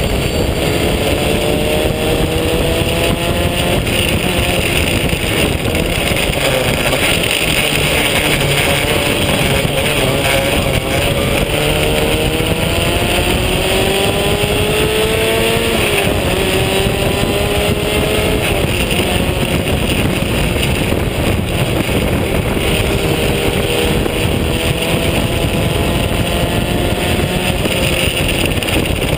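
Onboard sound of a vintage open-wheel race car at racing speed: the engine's pitch climbs steadily for several seconds and then drops back, again and again, under heavy wind rush on the microphone.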